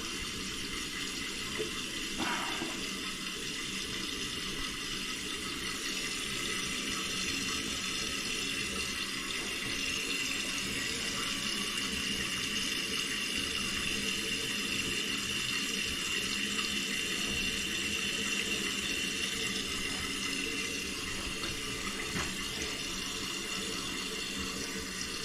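Toilet tank refilling through a newly installed Fluidmaster PerforMAX fill valve: a steady hiss of water running into the tank after a flush, with a small tick about two seconds in.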